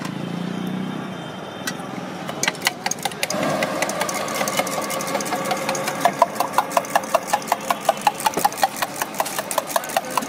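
Eggs being beaten in a steel mug, the utensil clinking against the metal: scattered clicks at first, then a fast, even rhythm of about four or five strikes a second from about halfway through.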